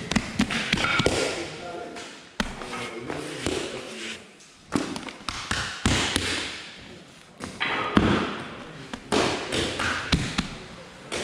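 Hands slapping and smearing fat onto a folded sheet of varkey dough on a table, making scattered thuds and taps, with voices in the background.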